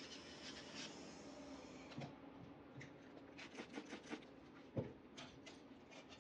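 Faint whine of an electric nail drill grinding a toenail, which stops about two seconds in. Then come scattered soft scratching and rubbing clicks as the toe is wiped with gauze, with one thump a little before the end.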